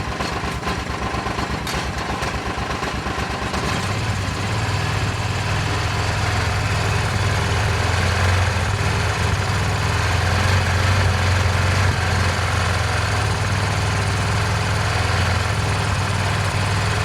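Honda Pioneer 700 single-cylinder engine running: a pulsing idle that, about four seconds in, picks up to a faster, steadier hum and grows slightly louder.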